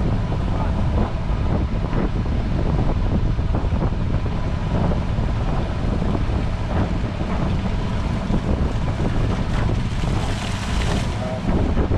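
Wind buffeting the microphone over a steady low rumble of a boat under way at sea, with scattered small knocks and a brief brighter hiss about ten seconds in.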